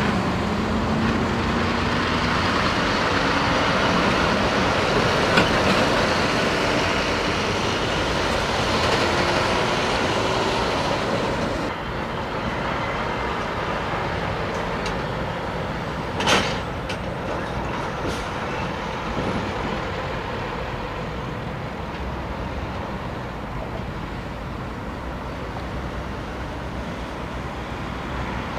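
Heavy trucks' diesel engines running and moving past, one engine's pitch rising over the first few seconds. The noise drops abruptly about twelve seconds in, and there is a brief sharp hiss about four seconds later.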